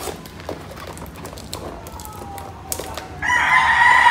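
A rooster crowing: one long, loud call starting about three seconds in, over light clicks and rustles of cardboard being handled.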